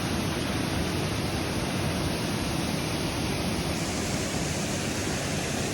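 Steady rush of a waterfall, an even roar of falling water.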